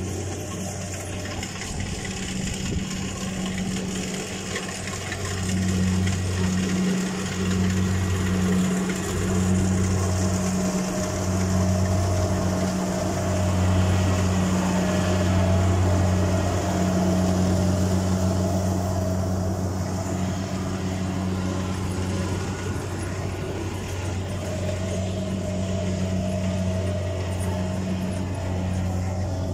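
Rice combine harvester running while it cuts and threshes the crop. The engine drones steadily, with a whine above it. It grows louder through the middle as the machine comes close, then eases off as it moves away.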